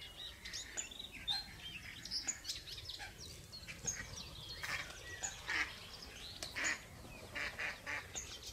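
Wild birds calling and chirping, many short calls overlapping, with a few longer calls in the second half.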